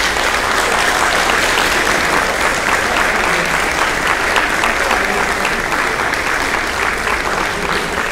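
Large audience clapping steadily, a dense mass of many hands.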